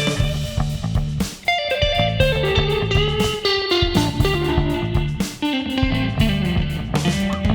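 Stratocaster-style electric guitar with single-coil pickups in the Memphis wiring scheme, playing a line of changing notes over a bass line.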